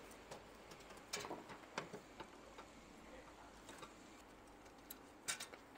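A few faint, scattered clicks and taps of a screwdriver working the screws of a sheet-metal side panel.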